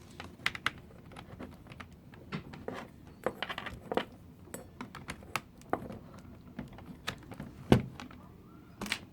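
Scattered clicks, taps and knocks from a mechanical keyboard and its USB cable being handled and plugged into a laptop, with one louder thump about eight seconds in.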